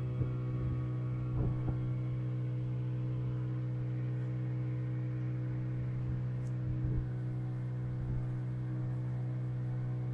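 A boat engine running at a steady speed, one constant droning tone that does not change pitch, with a few brief low bumps.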